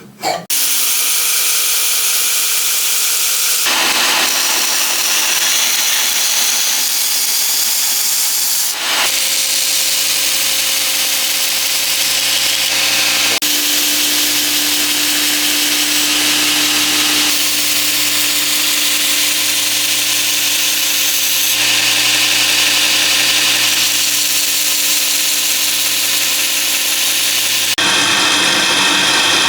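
Power tools working a steel knife blank: a steady grinding and cutting noise that changes abruptly every few seconds as one operation gives way to another.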